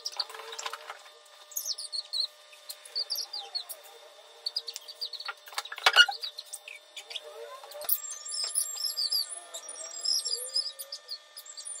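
Rapid, high-pitched bird chirps and tweets over faint steady tones, growing into a denser chatter in the last few seconds, with one sharp knock about halfway through.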